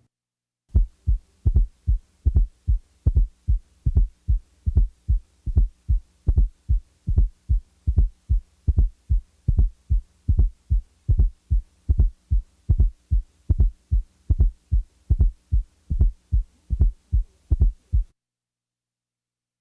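Teaching recording of heart sounds with a fourth heart sound (S4, atrial gallop), a low thud just before the first heart sound. The S4 is taken out partway through and then put back. The beat is a steady rhythm of low thuds over a faint steady hum, and it stops about a second and a half before the end.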